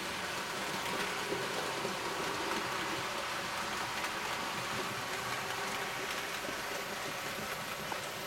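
A 00 gauge model train running along the layout's track, a steady rushing rattle.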